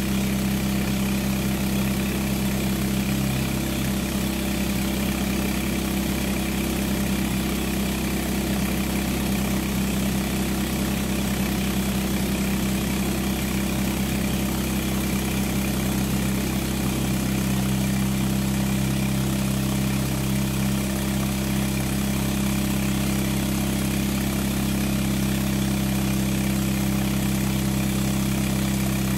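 Small diesel engine converted into an air compressor, running steadily at an even speed, with a steady hiss from a vapor-blasting cabinet in use.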